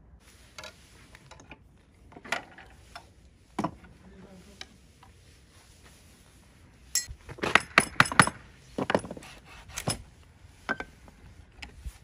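Sharp clinks and knocks from hand tools and the wooden workpiece being handled. The strokes are scattered, with a quick run of about six clinks a little past the middle, which is the loudest part.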